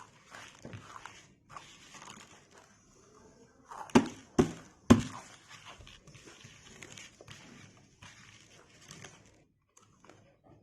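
Close-up chewing of crunchy murukku: a run of crackly crunches, with three loud, sharp crunches in quick succession about four seconds in.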